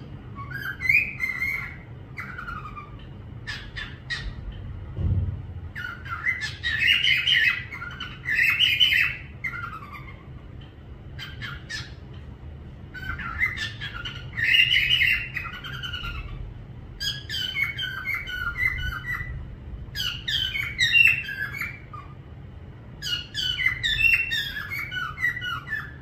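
A parrot whistling and chattering in a series of short phrases, each a half-second to two seconds long, with pauses between them.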